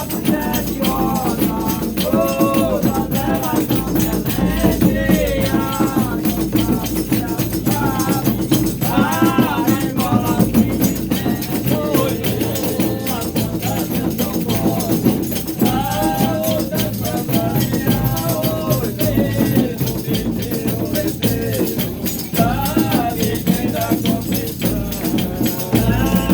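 Brazilian reisado folk music: voices singing over steady rattling percussion.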